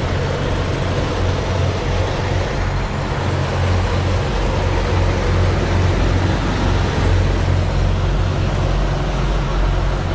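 Semi truck's diesel engine running steadily as the truck drives slowly, heard from inside the cab: an even low hum over a constant rush of noise.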